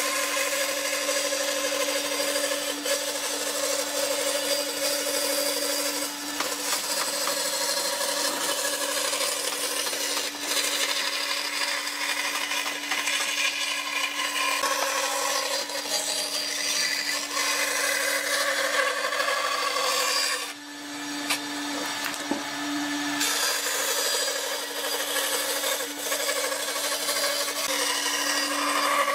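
Band saw running with a steady hum, its blade cutting along a curve through pine boards. The sound drops briefly about two-thirds of the way through, then the cutting carries on.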